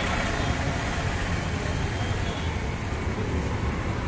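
Steady street traffic noise: a constant low rumble of passing vehicles.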